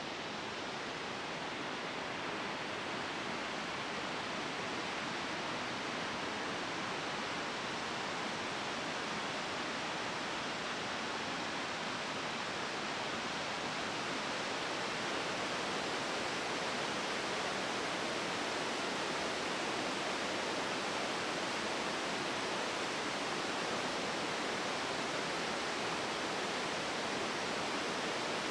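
Steady rush of falling and running water from Taughannock Creek's falls and rapids, growing slightly louder toward the end.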